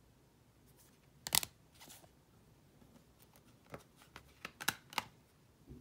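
Trading cards being handled and shuffled through by hand: a sharp click about a second and a half in, then a few lighter clicks and rustles near the end.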